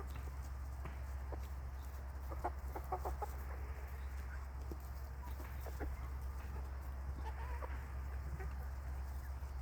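A flock of chickens in a coop clucking, with short scattered calls that bunch up a couple of seconds in and again later, over a steady low hum.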